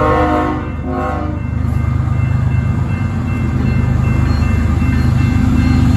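BNSF ES44AC diesel locomotive approaching a grade crossing: two short horn blasts in the first second and a half, then the low rumble of its engine growing louder as it nears.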